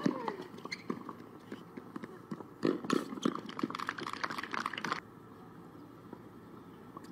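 A tennis ball is struck hard with a racket at the start, ringing out sharply. About three seconds in comes a couple of seconds of knocks and clatter mixed with voices, which cut off abruptly; a low steady outdoor background follows.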